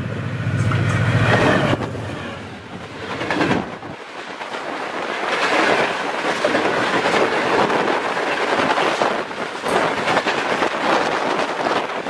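Diesel-hauled passenger train passing close by at high speed. The locomotive's engine is heard loudly for the first couple of seconds, then the coaches rush past with rapid wheel clatter over the rail joints.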